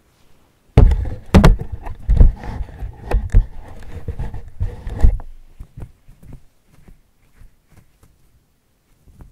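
A cat shifting and pushing against foam panels right beside the microphone: a few seconds of loud, irregular thumps and rustling, starting about a second in, then only faint scattered scuffs.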